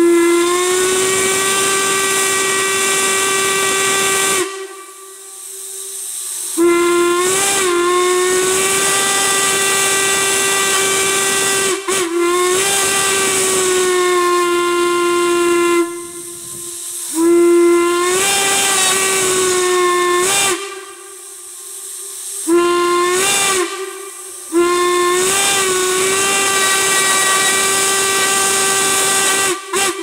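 An antique railroad steam whistle on a steam manifold, blown in about five long blasts separated by short pauses. Each blast opens with a quick wobble in pitch, and a steam hiss runs under the whistle.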